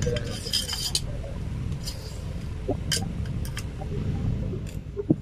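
Steel parts of a PCP hand pump clinking and scraping together as the inner tube is fitted into the pump body: a quick run of light clinks in the first second, then scattered single clicks.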